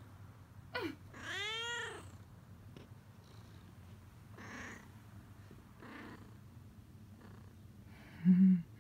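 A tabby cat meows about a second in: a short falling chirp, then one drawn-out call that rises and falls in pitch, followed by a few softer short sounds. Near the end comes a brief, low-pitched sound, the loudest in the clip.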